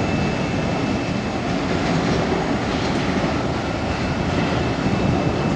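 The four CFM56 turbofan engines of an Airbus A340-300 climbing out at takeoff power: a steady, loud jet noise with a faint high whine running through it.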